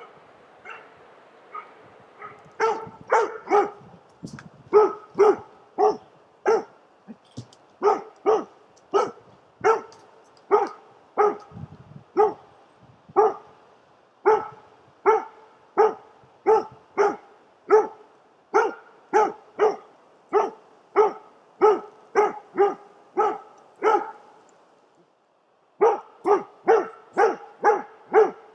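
Young Jämthund (Swedish elkhound) barking steadily at a bull moose, the rhythmic bay a moose dog gives when it holds a moose, about two barks a second with a brief pause near the end.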